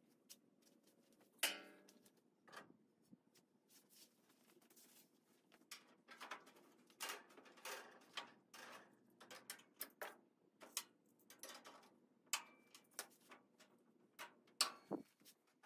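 Scattered clicks, clinks and light knocks of steel sheet-metal body panels being handled and set in place on an early Ford Bronco body. There is a sharper knock about a second and a half in and another near the end.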